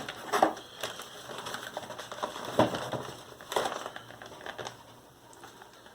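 Packaging being opened and handled by hand: irregular crinkling and rustling with scattered clicks, dying down near the end.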